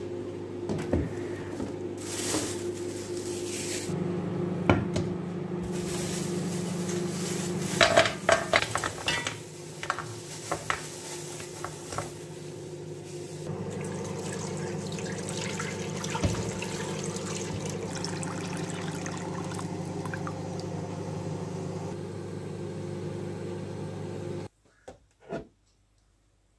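Kitchen handling sounds: clicks and clatter of containers and cookware, then a steady stream of water poured into a pot of plums, over a steady low hum. Everything cuts off abruptly near the end, leaving a couple of short knocks.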